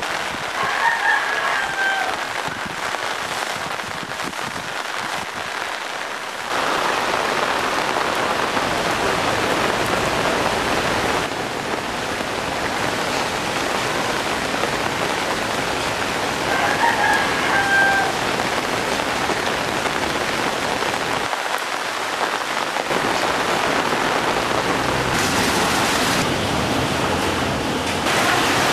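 Steady hiss of heavy rain falling on floodwater and hard surfaces, with a rooster crowing twice, once near the start and again about halfway through. The level jumps up and down abruptly several times.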